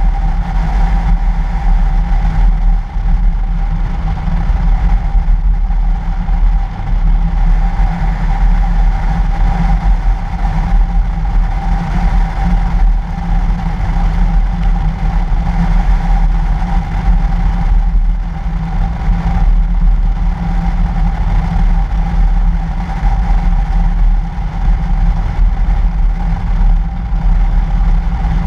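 2013 Toyota FJ Cruiser driving on a snow-covered road, heard from a camera on the outside of the vehicle: a steady, loud low rumble of wind and road noise with a constant hum running through it.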